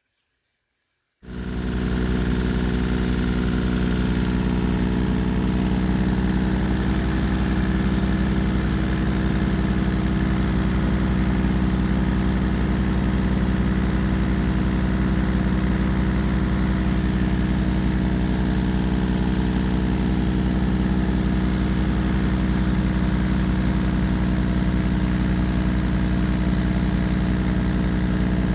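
Kubota tractor's diesel engine running at a steady speed, cutting in abruptly about a second in.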